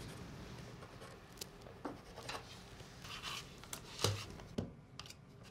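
Pencil lead scratching faintly along plywood as a line is marked, then a few sharp clicks and knocks as a one-handed bar clamp is set on the board, the loudest about four seconds in.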